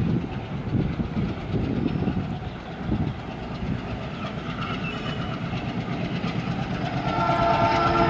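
WDM3A diesel-electric locomotive's ALCO 16-cylinder engine chugging under power as the train approaches, growing louder. About seven seconds in, its horn starts blowing: a held chord of several tones.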